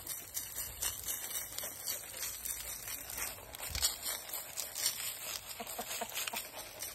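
Quiet, irregular crunching and crinkling clicks of footsteps on dry straw and dead leaves.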